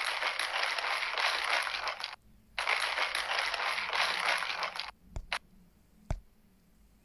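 Plastic drink bottle of liquid being shaken hard in two bursts of about two seconds each, followed by a few light clicks.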